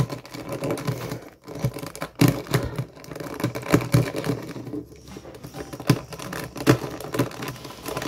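Plastic 3x3 speed cube being turned by hand: an irregular run of quick clicks and clacks as its layers snap round.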